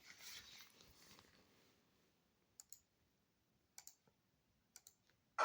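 Near silence broken by a few faint, sharp clicks: a pair a little over two and a half seconds in, a single one near four seconds, and another pair near five.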